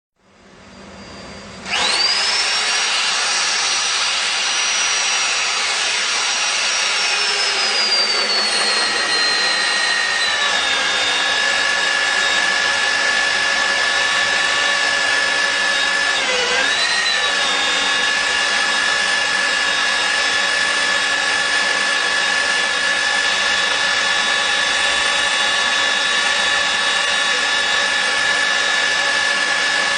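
Electric motor of a steel drilling machine starting with a sharply rising whine about two seconds in. The whine slowly sinks over the next several seconds, dips briefly about halfway through, and then runs steady.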